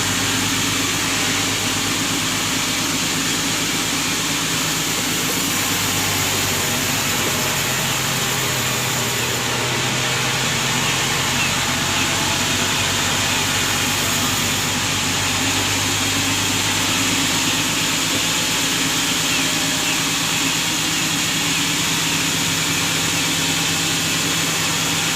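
Sawmill machinery running steadily: a continuous engine hum under an even, hissing noise.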